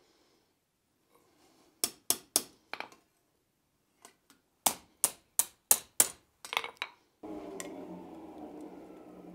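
Blacksmith's hammer striking the wrapped eye of a forged iron fire poker on the anvil, with sharp ringing blows. There are four blows, then two light taps, then a quicker run of about eight blows. About seven seconds in the hammering stops and a steady low hum takes over, with one more clink.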